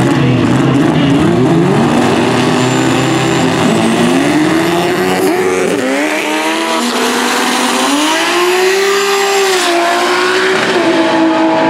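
Drag truck's 1000 hp Toyota Supra straight-six revving up and down on the starting line, then launching, its pitch climbing steadily for a few seconds. The pitch drops sharply, like a gear change, about ten seconds in, and the engine pulls on at a steadier note.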